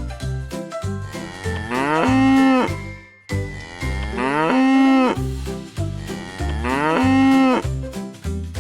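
A cow mooing three times, each moo a long pitched call of about a second, over background music with a steady beat.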